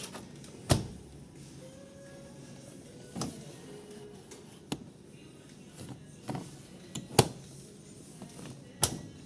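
About five sharp knocks and clacks, a second or two apart, over a steady background hum; the ones about a second in and about seven seconds in are the loudest.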